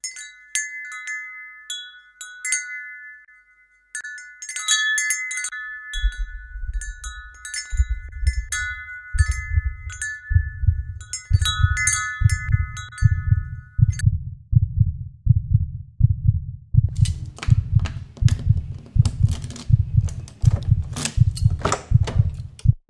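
Wind chimes tinkling, several ringing notes struck unevenly, until about fourteen seconds in. From about six seconds in, low thumps at a heartbeat-like pace begin and speed up from roughly one a second to two a second. A hiss joins them near the end.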